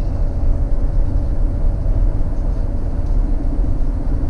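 Steady low rumble of a running vehicle engine, with a faint even hum over it.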